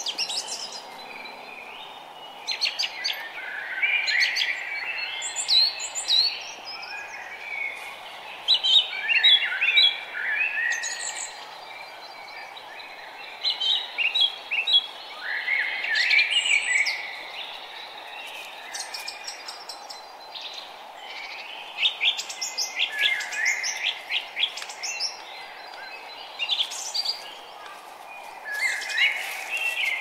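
Songbirds singing: short bursts of quick chirps and whistled notes, coming every few seconds, over a steady background hiss.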